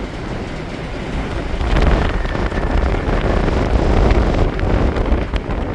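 Strong gale-force wind buffeting the microphone: a dense, rumbling rush that grows louder about two seconds in.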